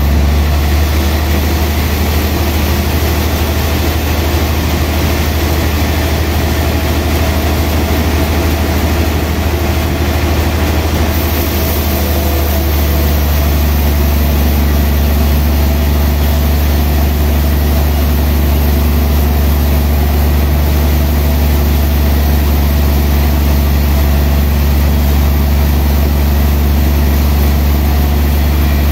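Large band sawmill running steadily with a loud low hum as its blade saws through a big log; the tone shifts slightly about twelve seconds in.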